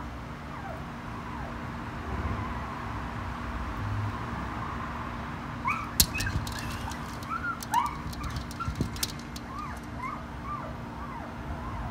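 A small dog whining in short, high, rising-and-falling whimpers, again and again. From about six seconds in, its claws tap and scrape against a glass door several times as it jumps up at it.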